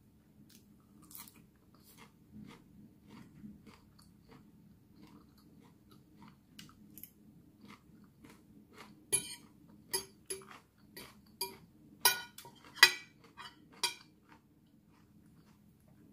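A person eating, chewing a tuna and rice-noodle salad with soft, wet mouth sounds and light crunches. About nine seconds in comes a run of louder, sharper clicks that lasts until about fourteen seconds in.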